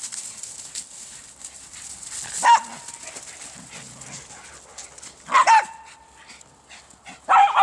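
Poodles barking during play: three short, sharp barks, about two and a half seconds in, about three seconds later, and one just before the end, with soft rustling in between.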